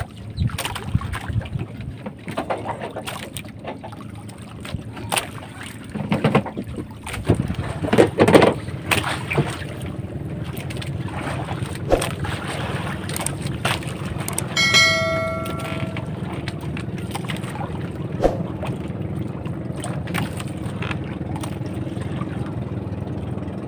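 Knocks and thuds on a small outrigger fishing boat. From about ten seconds in, a steady low hum of a boat engine running. A brief high ringing tone comes about fifteen seconds in.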